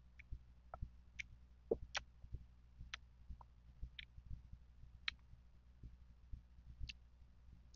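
Close-miked chewing of firm green mango slices: irregular crisp crunches and wet mouth clicks, fairly faint.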